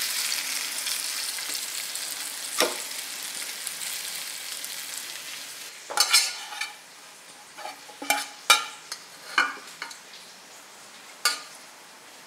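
Sea bass fillets sizzling in a hot frying pan, the hiss fading away over the first six seconds as the fish comes off the heat. Then several sharp clinks and scrapes of a metal fork against the pan and plate as the fish and broccoli are served.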